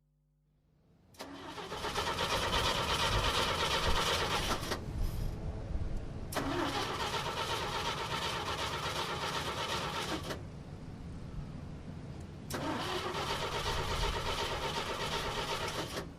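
A car's starter cranking the engine over in three long attempts of about three to four seconds each, the engine not catching: a car that won't start.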